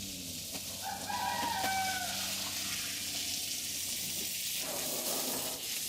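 Steady rushing hiss of running water, with a short falling call from a bird about a second in.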